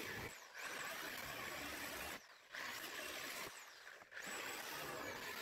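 Angle grinder's cutting disc cutting through the plastic top of an IBC tote, fast-forwarded and turned well down: a faint steady whine with high sweeps in pitch, broken off abruptly three times.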